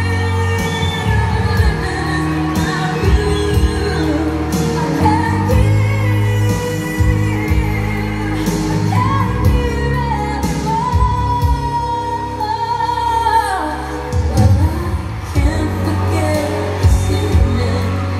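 Pop song with a sung melody, steady bass and a regular drum beat, played through JBL LX-44 loudspeakers driven by an Onkyo A-9310 amplifier and heard in the room.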